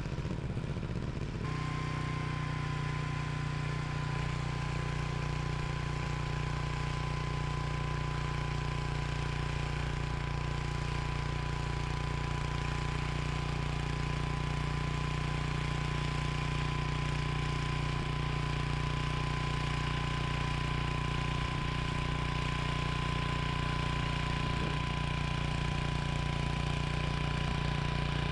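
Troy-Bilt Horse rear-tine tiller's engine running steadily, with a thin steady high-pitched whine over it from about a second and a half in.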